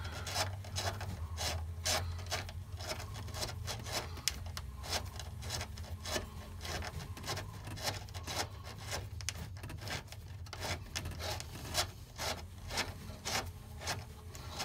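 Thick dune-buggy style throttle cable being worked through its guide tube, with irregular rubbing and scraping clicks over a steady low hum.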